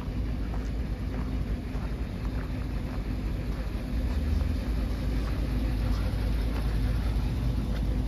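Truck engine idling steadily with a constant low hum, under a heavy rumble of wind on the microphone.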